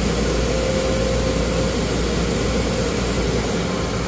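Steady mechanical drone with a deep rumble and a constant mid-pitched hum: machinery running at an automatic car wash's pay station. It eases off slightly near the end.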